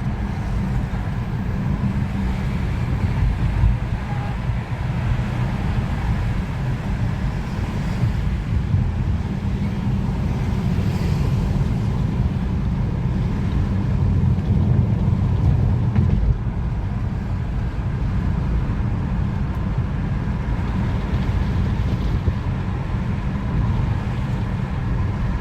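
Steady low rumble of a car's road and engine noise heard from inside the cabin while driving along.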